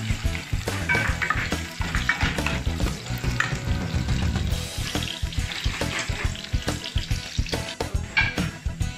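Sliced onion, garlic and ginger sizzling in hot oil in a pot while being stirred with a spoon, as the aromatics are sautéed toward golden brown. Background music plays underneath.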